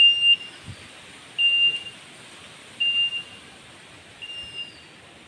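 A short, high, steady beep repeating about every one and a half seconds, four times, the later ones a little fainter, over a steady hiss.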